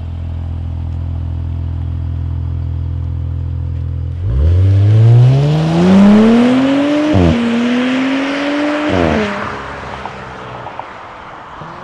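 Audi B9 S4's single-turbo 3.0-litre V6, with an ECS Tuning X-pipe in place of the centre muffler, idling and then pulling away hard. About four seconds in the revs climb, drop suddenly at a quick upshift, climb again, drop at a second upshift, and the note fades as the car drives off. It is loud heard from outside the car.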